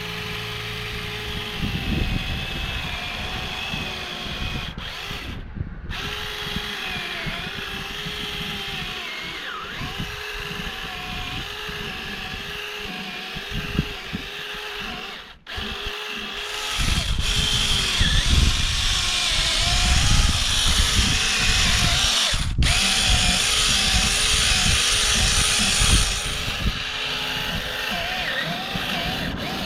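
Small chainsaw running and cutting into a pumpkin to hollow out its insides, the motor pitch wavering as it bites. It gets louder from a little past halfway to near the end, and breaks off briefly a few times.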